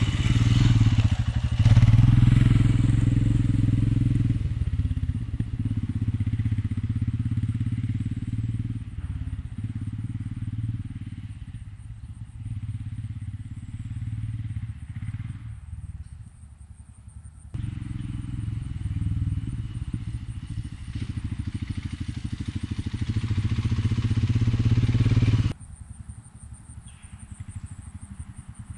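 Royal Enfield Himalayan's single-cylinder engine running under a rising and falling throttle as the bike is ridden through slippery soft sand. It is loudest a couple of seconds in and again shortly before it drops off suddenly near the end.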